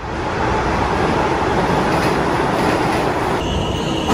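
Subway train running: a loud, steady rumble and rattle, with a steady high-pitched tone, like wheel squeal, coming in about three and a half seconds in.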